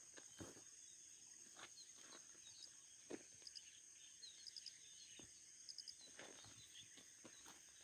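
Near silence outdoors: a faint steady high-pitched insect trill, short bird chirps in quick clusters of two or three, and a few soft taps. The crawling snake itself makes no audible sound.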